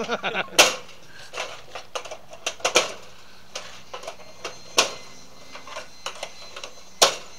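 Irregular sharp clicks and knocks, with louder single knocks about two seconds apart.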